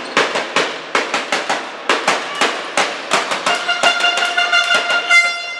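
Sharp bangs ringing in a sports hall, about two to three a second in a regular beat. A held horn-like tone joins about three and a half seconds in.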